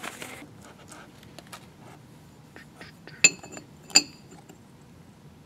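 Steel tapered roller bearing parts being handled and test-fitted into a cast-iron wheel hub: light clicks, then two sharp ringing metal clinks a little under a second apart, past the middle.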